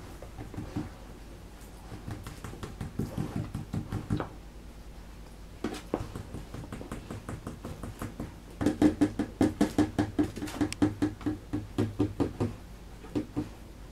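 Three-week-old puppies nursing: quick, rhythmic wet suckling and smacking at about three strokes a second, growing louder and more regular a little past halfway.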